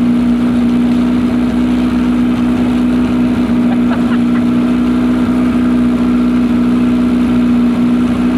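A vehicle's engine running at a steady pitch under a constant throttle, carrying the vehicle fast along a dirt track.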